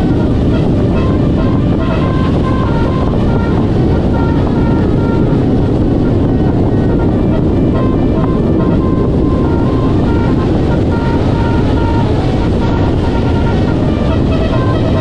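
Steady loud rumble of road traffic with wind buffeting the microphone. Faint short notes at changing pitches come and go over it.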